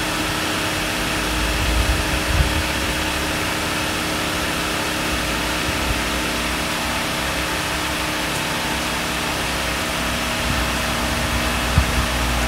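Steady mechanical hum from the engine bay of a 2004 Mitsubishi Lancer, with a few even, constant tones over a steady hiss and a couple of brief low rumbles.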